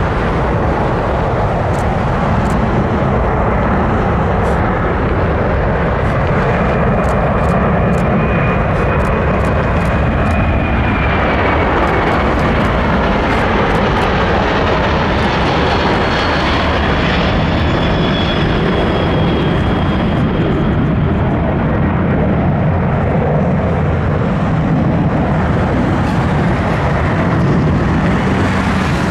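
Boeing C-17 Globemaster III's four turbofan engines: a loud, steady jet roar as the transport passes low on approach and lands. A high engine whine rises out of the roar twice, each time dropping slightly in pitch as the aircraft goes by.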